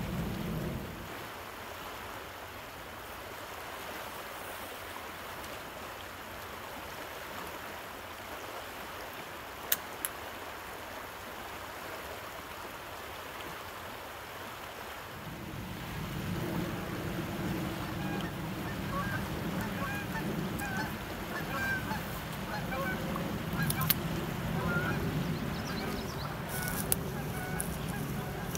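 Fast river current rushing steadily past the bank, with a few sharp clicks. About halfway through the rushing grows louder and fuller, with scattered short high sounds over it.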